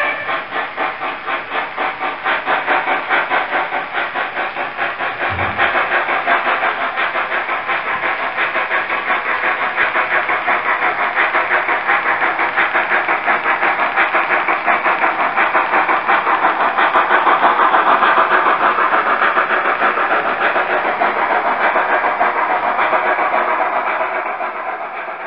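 Sound decoder of an H0-scale model of the Südbahn Class 109 steam locomotive playing steady, rhythmic exhaust chuffs as the model runs. The chuffing fades away near the end.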